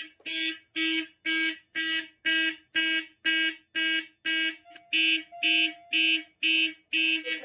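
Simplex fire alarm horns sounding in alarm after a manual pull station activation, blasting in a steady even rhythm of about two blasts a second.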